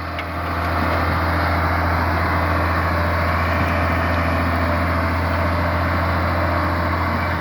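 Tipper truck's diesel engine running steadily with a strong low drone; it builds over the first second and drops off suddenly near the end.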